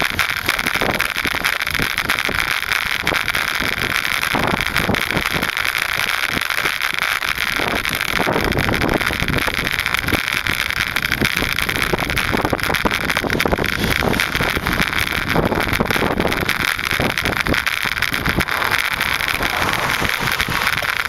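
Wind rushing over the microphone of a moving bicycle ride: a steady loud hiss with irregular low buffeting gusts.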